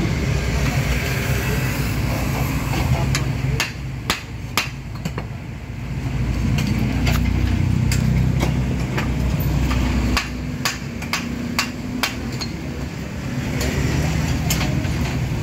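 A diesel engine running steadily, easing off twice, with a scattered series of sharp knocks through the middle and near the end, as machinery works at loading soil.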